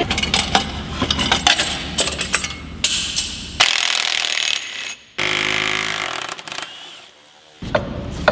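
Wrench ratchets clicking and tools clanking against metal while bolts are worked loose under a car. This is followed by two runs of a cordless power tool's motor, the second a pitched whine that fades out.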